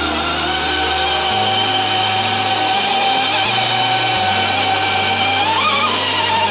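Electric motor and gears of an RC 6x6 truck whining steadily as it pushes snow with its plow, the pitch rising briefly near the end. Background music with a slow bass line runs underneath.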